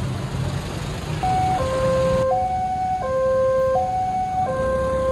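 Railway level-crossing electronic warning alarm sounding a two-tone high-low signal. Each tone holds for about two-thirds of a second; it starts about a second in, over a low background rumble. It signals that the crossing is closed.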